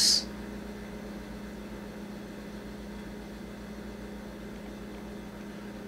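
Room tone: a steady low electrical hum with faint hiss, just after the 's' of a sung word at the very start.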